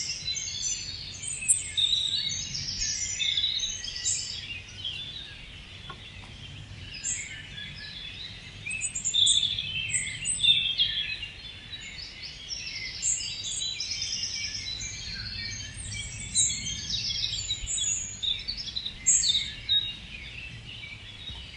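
Morning forest bird chorus: many small songbirds chirping and trilling over one another without pause, above a steady low background rumble.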